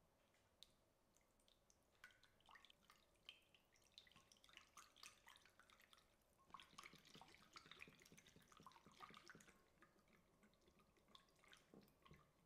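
Faint wet clicking and sloshing of a silicone whisk beating a peanut-butter and soy-sauce dressing in a ceramic bowl. It starts about two seconds in and thins out near the end, as the dressing turns creamy.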